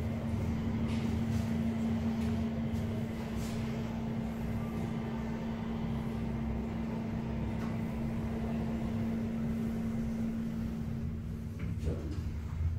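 Steady electrical hum with a low rumble inside a Schindler traction elevator car, with a few faint clicks and a brief swell near the end.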